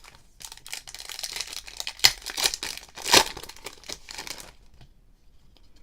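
Crackly crinkling and tearing of a plastic trading-card pack wrapper being torn open, with two sharper loud rips about two and three seconds in; it stops about a second before the end.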